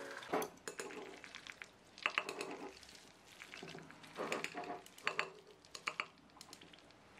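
Chopsticks mixing jjajang ramen noodles in a ceramic bowl. The sound comes in short bouts of clicking and scraping against the bowl, with a pause between each bout.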